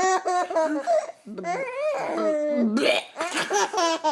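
Six-month-old baby laughing in short, high-pitched bursts, with a longer, lower drawn-out voice sound in the middle.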